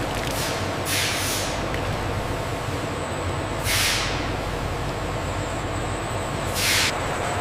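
Steady factory machinery noise with three short hisses, about a second in, in the middle and near the end.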